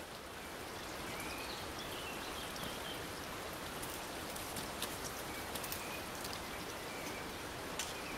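Steady rushing noise of a mountain torrent flowing below the path, with a few short bird chirps and a couple of light taps from the hiker's steps and walking pole on the log ladder.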